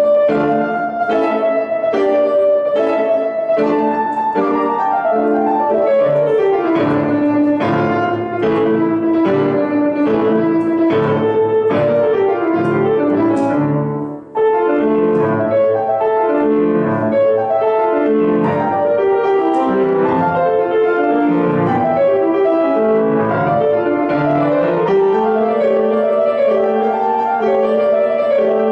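Grand piano played solo: a piece with quick sweeping runs across the keyboard, held at a steady, full level. The playing pauses briefly about halfway through, then picks up again.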